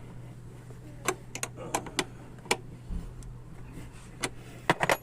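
A series of sharp, irregular clicks and clinks, a quick cluster of them near the end, over a steady low hum.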